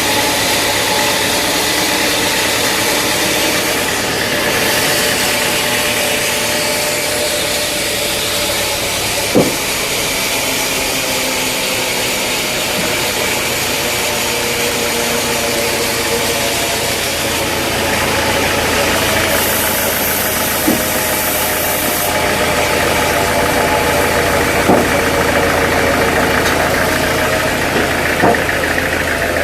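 Sawmill machinery running steadily with an engine-like drone and a few sharp knocks spread through it.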